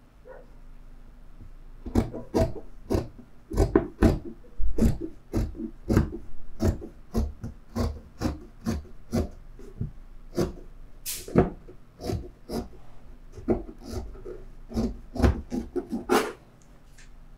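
Scissors cutting through folded fabric: a run of crisp snips, two or three a second, starting about two seconds in.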